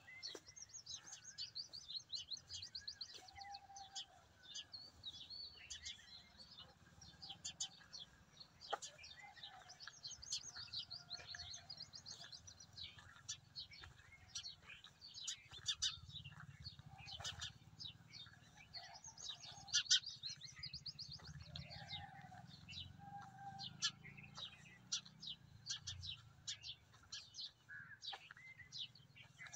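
A flock of sparrows chirping continuously in quick, overlapping high chirps, with a few short lower notes mixed in.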